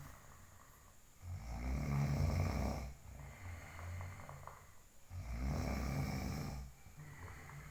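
A sleeping person snoring: two loud, low snores, each about a second and a half long and roughly four seconds apart, with a softer breath between them.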